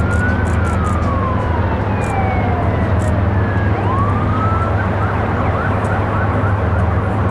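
Emergency vehicle siren in a slow rising-and-falling wail that switches to a fast yelp about five seconds in, over a steady low rumble.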